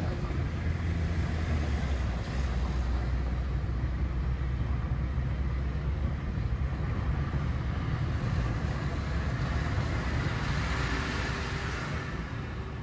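Steady low rumble of a vehicle travelling on the road, engine and road noise, easing slightly near the end.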